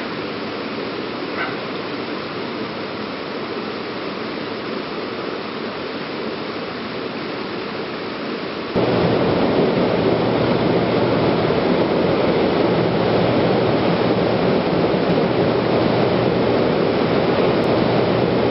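Steady rush of water from a rocky stream. About halfway through it jumps louder and deeper, and then holds steady.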